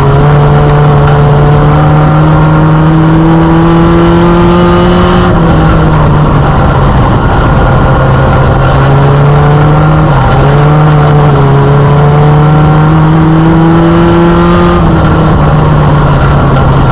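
Mini stock race car's four-cylinder engine at racing speed, heard from inside the cockpit. Its pitch climbs steadily, drops about five seconds in, climbs again from about ten seconds, and drops once more near the end, as the car accelerates down the straights and eases off for the turns.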